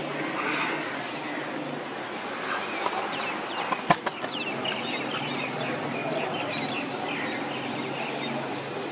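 Outdoor ambience: a steady background hiss and rumble, with a run of short, quick bird chirps from about three seconds in and a single sharp click about four seconds in.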